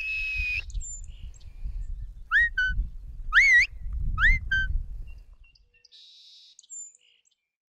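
Shepherd's herding whistle giving commands to a sheepdog: one long whistle that rises and then holds at the start, then three short rising whistles about two to four and a half seconds in, over a low rumble.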